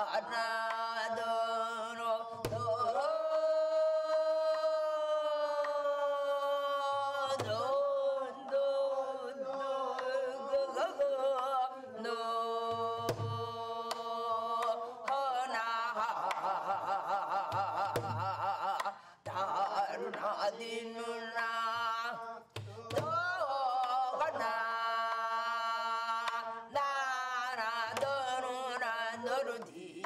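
Korean gueum, a wordless vocal melody sung on syllables like "na-neo-na", in long held notes that waver and slide, over sparse deep drum strokes in gutgeori rhythm.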